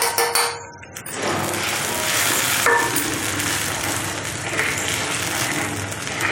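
Roasted semolina (rava) stirred with a metal slotted spoon into ghee and water at a rolling boil in a clay pot, giving a steady bubbling hiss from about a second in. A few light metal clinks come at the very start.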